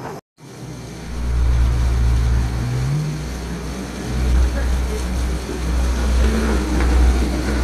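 Steady low rumble of wind and engine noise on the deck of the moving ferry Itsukushima, with a faint engine hum that rises slightly in pitch about three seconds in. It starts after a brief drop-out.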